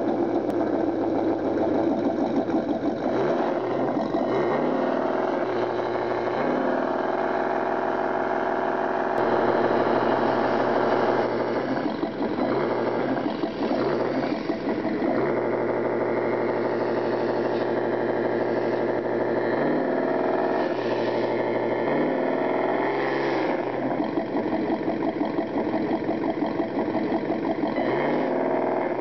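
Truck engine sound running and revving, its pitch rising and falling several times as the revs change.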